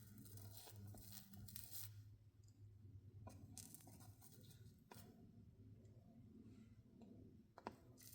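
Faint soldering sounds: the hot iron melting solder along stained glass seams, with irregular sizzling and crackling of gel flux and scratchy drags of the tip, over a steady low hum.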